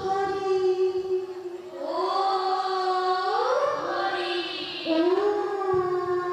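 Women singing the opening of an Assamese dihanam devotional chant through microphones, with long held notes that slide up and down in pitch.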